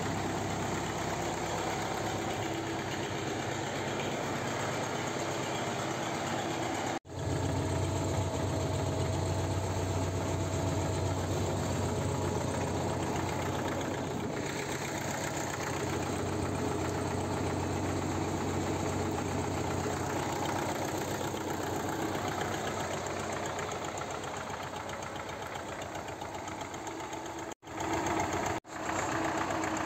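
Belarus MTZ-52 tractor's diesel engine running steadily at idle, with short breaks about seven seconds in and twice near the end.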